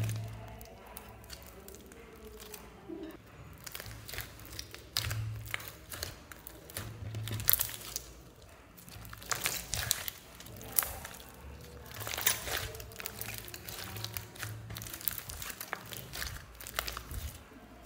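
Hands squeezing and kneading a large mass of mixed fluffy and glossy slime: sticky squelches with a busy, irregular run of small clicks and crackles, a few sharper snaps among them.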